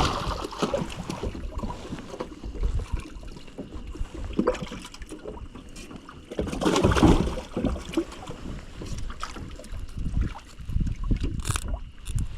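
Wind buffeting the microphone on a boat at the water, with irregular low rumbles and scattered knocks and handling sounds, and a louder burst about seven seconds in.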